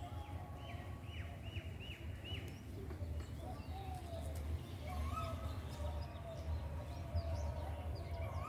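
Small birds chirping, with a run of four quick falling notes about a second in and scattered calls after, over a steady low rumble.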